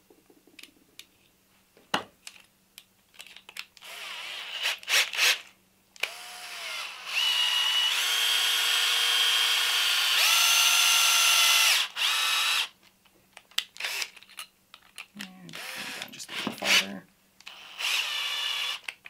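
Bosch cordless drill spinning a length of 1/4-20 threaded rod to run a nylon lock knob onto it, working against the grip of the knob's nylon insert. The motor whine starts about six seconds in, runs steadily, steps up in pitch partway through and stops after about six seconds, with light clicks of handling the drill, rod and knob before and after.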